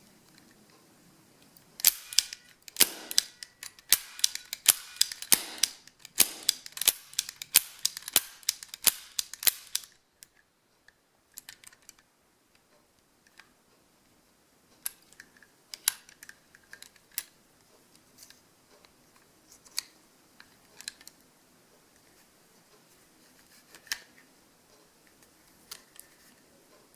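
Hubley Colt 45 die-cast cap pistol being cocked and fired with round caps: a quick run of sharp cracks and clicks over about eight seconds. After that come scattered lighter clicks of the metal gun being handled.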